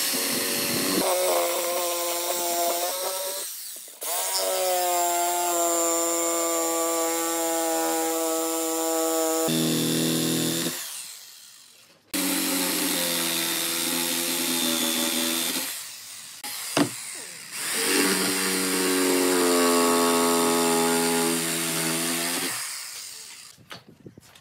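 Corded electric jigsaw cutting through a pine board. Its motor runs in four stretches with short pauses between them, and there is a sharp click in the third pause.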